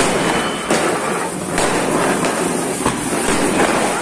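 A string of firecrackers going off in a rapid, unbroken crackle, with a few sharper cracks now and then.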